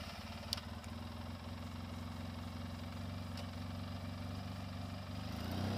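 700cc Polaris ATV engine idling steadily just after being started, growing a little louder near the end.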